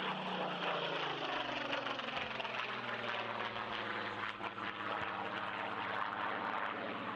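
Supermarine Spitfire's piston aero engine running in flight, a steady propeller-engine note whose pitch falls slightly over the first two seconds as the aircraft passes.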